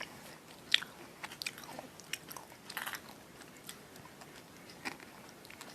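A person chewing and eating a small piece of chocolate up close: soft mouth smacks and scattered small clicks, with a sharper click about three-quarters of a second in.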